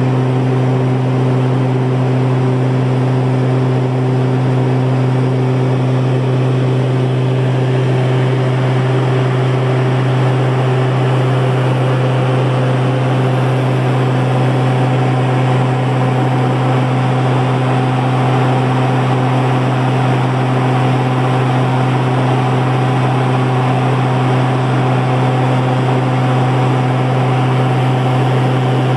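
Cabin drone of a Cessna Conquest twin turboprop in cruise: the propellers and engines give a steady deep hum with a few higher steady tones over a constant hiss.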